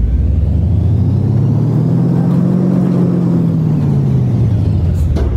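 Ferry machinery humming during docking, its pitch rising and then falling again over a few seconds, over a heavy rumble of wind on the microphone.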